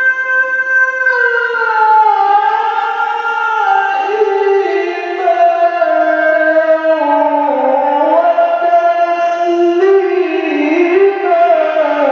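A male qari's voice reciting the Quran in melodic tilawah style through a microphone and PA: one long melismatic phrase of held notes with ornamental turns, stepping gradually down in pitch.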